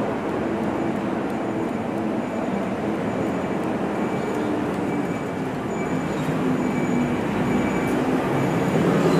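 Volvo FM 370 truck's diesel engine running steadily, with a low pitched drone that shifts slightly and grows louder near the end.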